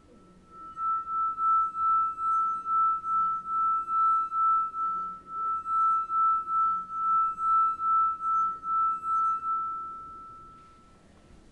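Stemmed wine glass partly filled with water, its rim rubbed so that it sings one steady high note tuned to E by the water level. The note swells and fades about two or three times a second and dies away near the end.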